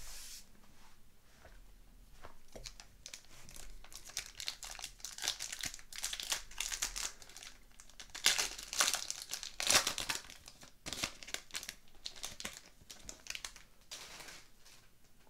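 A hockey card pack's wrapper being torn open and crinkled by hand: a run of short crinkling bursts, loudest in the middle, dying away near the end.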